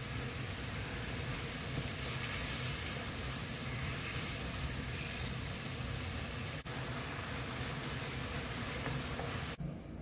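Slices of beef sizzling steadily in a frying pan of bubbling soy-sauce glaze. There is a brief break about two-thirds of the way through, and the sound cuts off just before the end.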